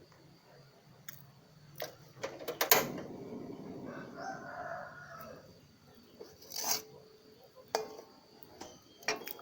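A rooster crowing once for about two seconds, with sharp knocks and clatter around it, the loudest just before the crow.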